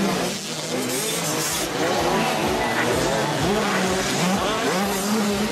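Several 85cc two-stroke motocross bikes racing, their engines revving up and down over one another.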